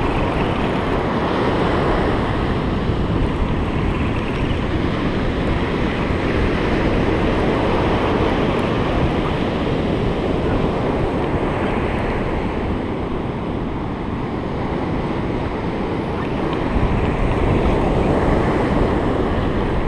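Surf washing and breaking on an ocean beach, a steady noisy wash, with wind buffeting the microphone.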